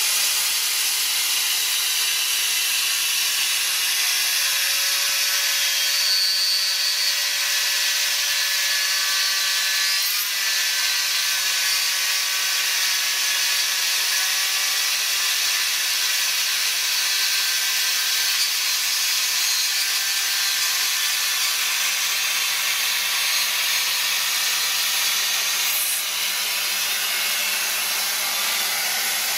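Proxxon MF70 mini milling machine running under CNC, its spindle turning an end mill that cuts slots in an aluminium plate, over the steady rush of a small vacuum drawing the chips off through a cyclone separator.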